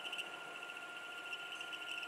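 Metal lathe turning a stainless-steel tube at about 605 rpm, with a steady high whine and a wavering, higher-pitched squeal from a high-speed-steel tool rubbing on the spinning tube end to roll its diameter out by friction.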